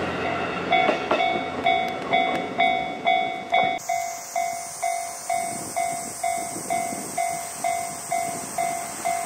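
Railway level-crossing warning bell ringing steadily, about two dings a second. A steady high hiss joins about four seconds in.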